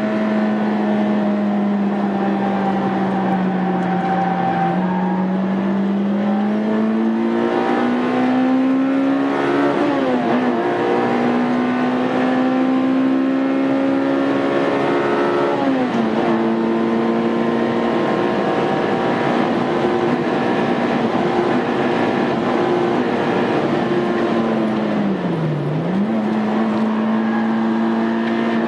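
Honda Integra Type R engine under hard acceleration, its pitch climbing and dropping sharply at two upshifts, then holding a steady note with one brief dip near the end.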